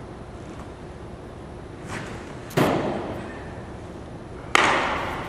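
A pitched baseball smacking into the catcher's leather mitt about halfway through, a sharp pop with an echo off the hall. A second sharp smack of the same kind comes near the end.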